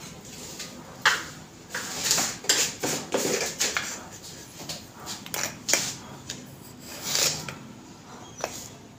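Kitchen clatter: irregular clinks and knocks of dishes, utensils and containers being handled, busiest from about a second in and thinning near the end.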